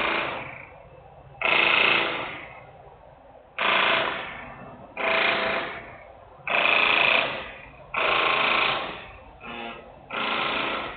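Loud industrial noise: repeated bursts of metallic clatter with a ringing tail, about eight in eleven seconds at uneven spacing, each starting sharply and fading out.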